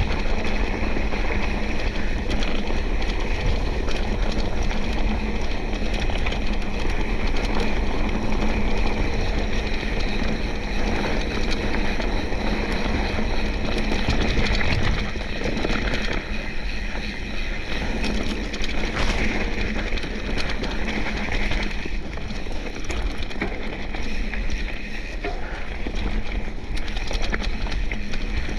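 Mountain bike rolling down a bumpy dirt trail over rocks and roots: steady rolling noise from the tyres, with frequent small knocks and rattles.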